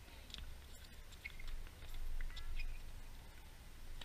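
Outdoor ambience: a low rumble of wind on the microphone that swells and fades, with a few faint, short high chirps.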